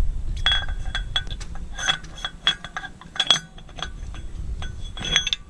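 Loose steel parts clinking together: about a dozen sharp, irregular metallic clinks, each with a short ring, as wheel-hub hardware is handled.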